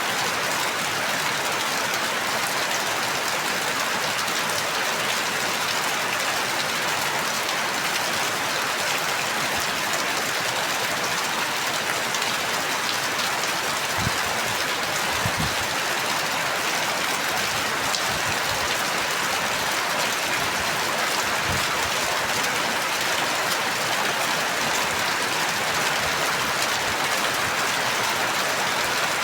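Steady rain falling in an even, dense hiss with no letup. A few soft low thumps come in about halfway through.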